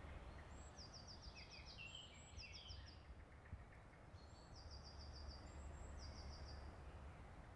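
Faint birdsong: short songs of quick high notes, each opened by a higher note, repeated every second or two, with some lower chirps in the first few seconds, over a low steady outdoor rumble.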